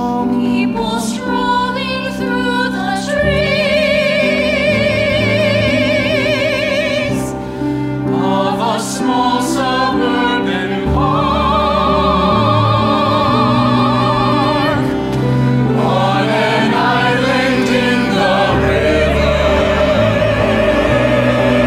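Musical-theatre ensemble singing long held choral notes with vibrato over an orchestral accompaniment, the chords changing every few seconds.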